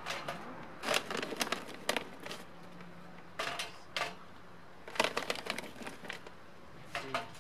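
Charcoal briquettes being dropped by hand, a few at a time, into a metal chimney starter: irregular clusters of clacks and knocks as they land on the metal and on each other.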